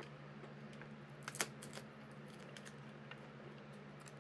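Light clicks and taps of hard plastic parts of a toy doll vanity and its mirror being handled, strongest about a second and a half in, over a steady low hum.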